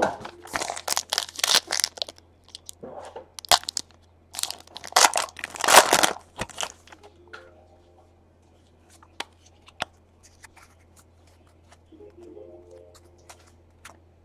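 Foil trading-card pack wrapper being torn open and crinkled, a run of sharp crackling tears for the first six seconds or so. After that come only scattered soft clicks as the stack of cards is handled.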